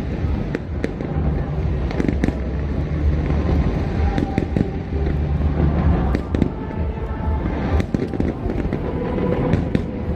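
Fireworks going off: irregular sharp bangs and crackles over a continuous low rumble, with music playing in the background.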